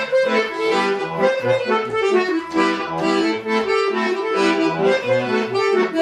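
Accordion playing a chastushka tune: a melody over a steady, repeating bass-and-chord rhythm, introducing the sung chastushki.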